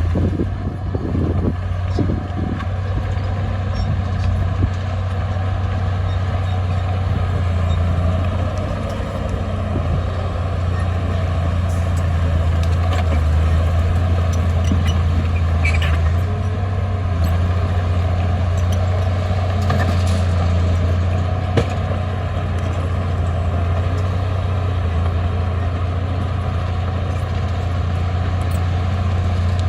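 Heavy diesel earthmoving machinery engine running steadily under load, with a deep hum and a few short metallic clanks now and then.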